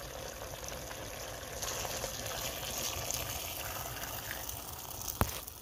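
Water being poured into a pressure cooker over the sautéed meat and vegetables of a chorba base, a steady gushing pour. There is one sharp knock near the end.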